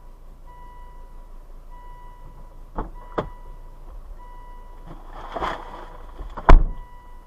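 An electronic beep repeating about once a second, with two sharp clicks about three seconds in, a rustling a couple of seconds later, and a loud thump near the end.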